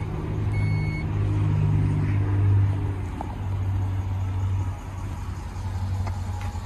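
Dodge Durango power liftgate closing: a warning chime beeps shortly after the start, then the liftgate motor hums steadily for nearly five seconds and stops.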